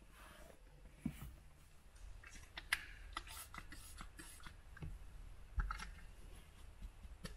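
Microfiber towel wiping over leather seat and dashboard trim. The rubbing comes with scattered light clicks and scuffs from handling, and there are two soft thumps, about a second in and about five and a half seconds in.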